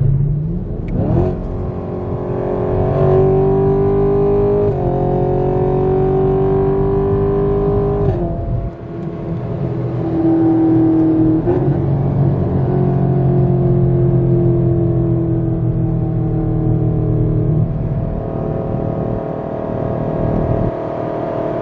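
A car engine revs up sharply about a second in, then holds high revs under load, with the pitch changing suddenly near five and eight seconds in before settling into a long steady run.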